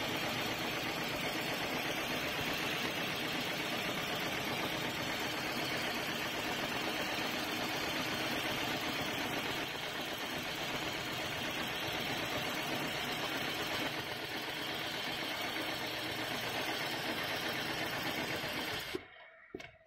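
FOXSEW FX5020H extra heavy duty programmable pattern sewing machine running steadily, its needle stitching a pattern through thick webbing strap. The sound cuts off near the end.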